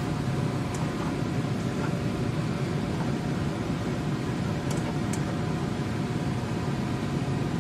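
Steady low mechanical hum with faint whining tones, not changing, and a few faint ticks.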